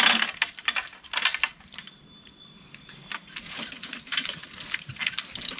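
Jingling clinks and rattles of a goat's harness and the fittings of a small wheeled cart as the goat is hitched up and starts pulling it. The clatter is busiest at the start and near the end, with a quieter stretch in between.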